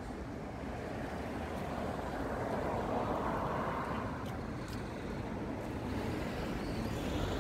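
Street traffic noise with a vehicle going past, its rushing sound swelling about three seconds in and building again near the end.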